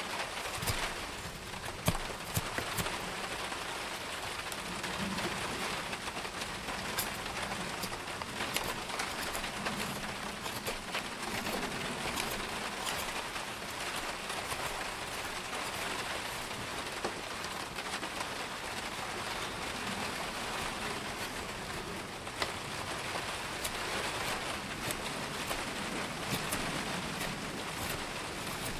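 Steady heavy rain, with scattered sharp ticks throughout. Under it, a knife blade shaves curls off a soft, dry wood spatula blank.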